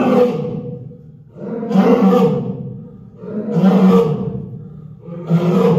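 Lioness roaring in a series of deep calls, four in a row, about one every two seconds, each lasting around a second.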